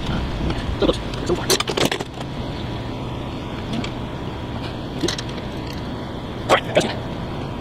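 Sharp metallic clicks and clinks of hardware being handled as a windshield is test-fitted on a motorcycle's front end. There is a quick cluster in the first two seconds, a single click about five seconds in, and two louder ones close together near the end, over a steady background hum.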